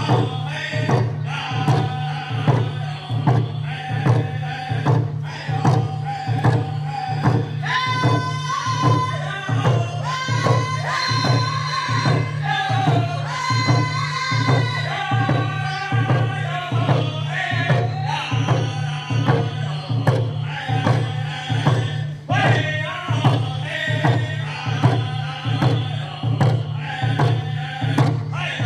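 A group of singers performing a powwow hand drum song in unison, striking frame hand drums with beaters in a steady beat. The voices climb higher and louder in the middle.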